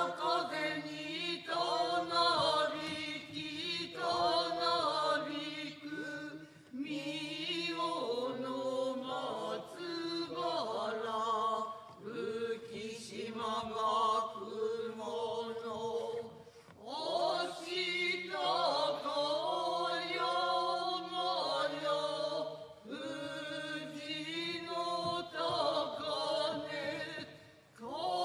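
Kanze-school Noh chant (utai) sung in unison by a seated chorus of men's and women's voices, accompanying a shimai dance. The chant is slow and drawn-out, with wavering held notes in long phrases broken by short pauses for breath.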